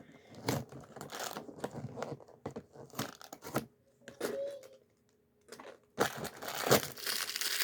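Small Lego pieces clicking and rattling as they are handled, then from about six seconds in packaging crinkling and tearing as the day's parts bag is opened.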